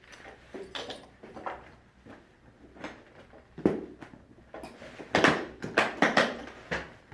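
Handling noise as a bassoon strap is stowed in the instrument case: scattered knocks, rustles and clicks, one sharp knock about halfway through and a quick run of clattering near the end.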